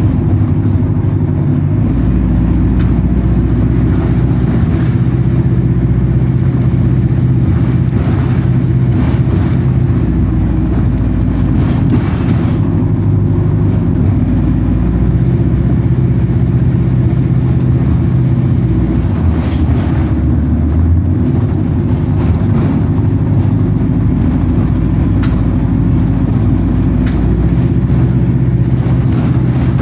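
Bus engine running steadily while the bus is under way, its pitch shifting a few times as the engine speed changes, with a few faint rattles.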